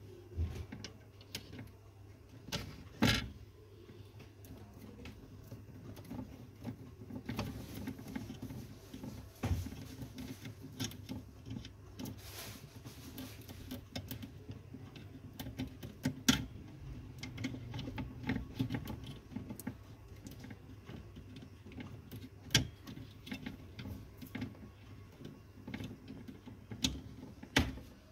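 Cables and connectors being handled at the back of a DVR: irregular clicks and knocks of plugs and cable ends, with some rustling, over a low steady hum. The sharpest clicks come at about 3 seconds in, about halfway, and twice near the end.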